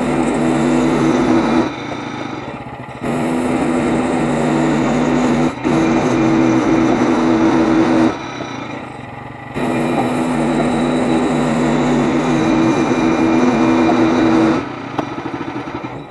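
Small gas engine of a Frontier OS23 portable bandsaw sawmill running hard while the band blade cuts a pine log. Twice it drops to a quieter, lower sound for a second or so before picking back up, and it eases off near the end.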